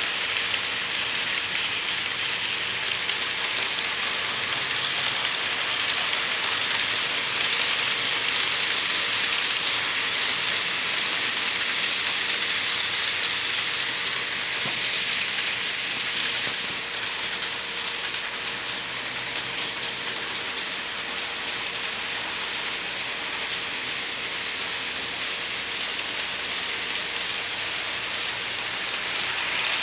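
Model trains running on the layout: a steady rolling hiss of small metal wheels on model track.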